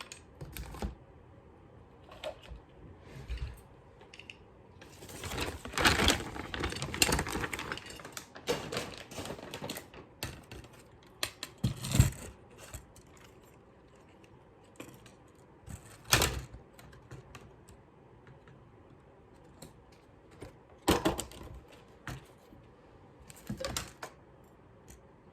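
Irregular sharp clicks and clattering of small hand tools and hardware on an electric bass being taken apart. There is a dense flurry about five to eight seconds in and single sharp knocks spaced through the rest.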